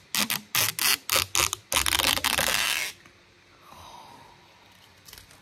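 Blue protective plastic film being peeled off a metal nail-art stamping plate: a quick run of sharp crackles, then one long steady peel of about a second that stops abruptly.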